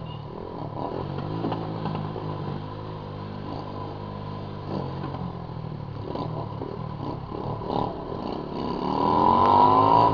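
Honda CG Titan 150 single-cylinder motorcycle with a loud aftermarket viúva-negra exhaust, running at low revs, then revving up hard near the end with a rising pitch.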